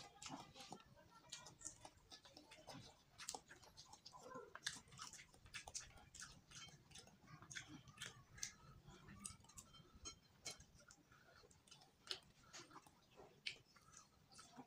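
A fresh petai (stink bean) pod being split and peeled apart by hand: faint, irregular little snaps and crackles, mixed with quiet chewing.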